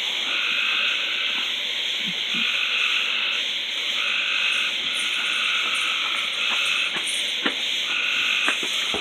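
Frogs calling at night: trills about a second long, repeated with short pauses between them, with a few sharp snaps in the last couple of seconds.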